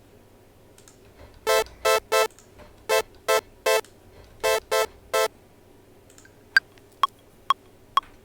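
Short synth chord stabs in A playing on their own, in three groups of three quick hits. They are followed near the end by four short, high single notes.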